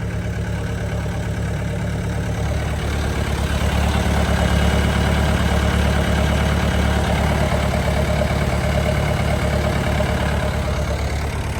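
Bobcat 825 skid steer's engine idling steadily, getting a little louder about three seconds in.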